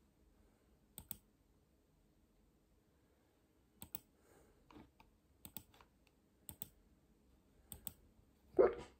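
About five sharp clicks, each often doubled, come a second or more apart. Near the end comes one louder, short hiccup.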